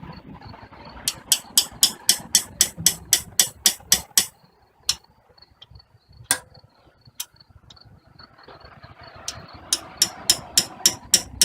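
Hammer striking a seized bolt on a cracked exhaust manifold, sharp metal-on-metal taps at about four a second. The taps come in two runs, with a few single blows in the pause between them. The bolt is being tapped back and forth until its head breaks off.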